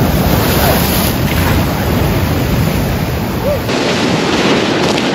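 Ocean surf breaking and washing over rocks: a loud, steady rush of waves, its low rumble dropping away about three and a half seconds in.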